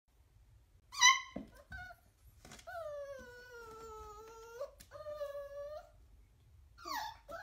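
Dachshund puppy penned behind a low barrier, whining to get out: a short high yelp about a second in, then a long whine that falls slowly in pitch, a shorter whine, and another yelp near the end.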